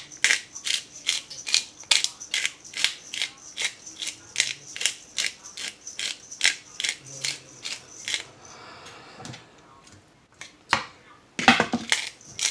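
Pepper shaker shaken repeatedly, a rhythmic rattle of about two or three shakes a second; it stops for a couple of seconds, then a few more shakes come near the end.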